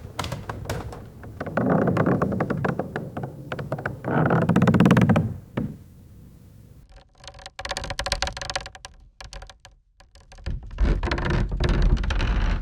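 Wooden stairs creaking and knocking under someone's steps, in several loud swells of dense crackling creaks. About seven seconds in, a different take begins with a drawn-out pitched creak, followed by more creaking with a low thud.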